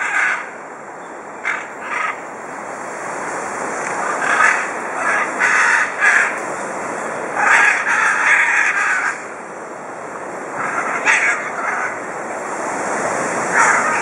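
Scarlet macaws giving harsh squawking calls in separate bursts every second or few, with a longer run of calling around the middle, over a steady rushing background noise.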